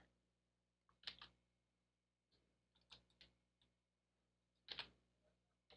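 Faint clicks of computer keys and a mouse, a few scattered presses at irregular intervals, with a louder double click near the end.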